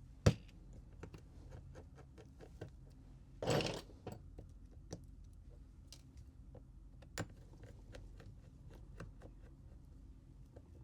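Small tools and phone parts being handled on a repair bench: a sharp click just after the start, a short scraping rustle about three and a half seconds in, another click around seven seconds, and light scattered ticks in between.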